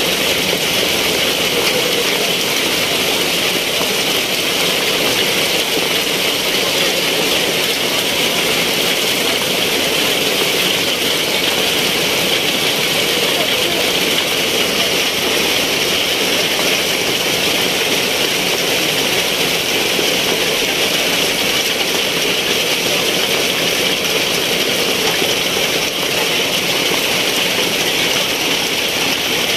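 Heavy rain pouring down onto wet paving and tables, a dense, steady hiss that does not let up.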